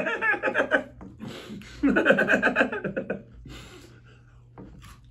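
A man laughing in two bursts, the second starting a little under two seconds in, then it dies away.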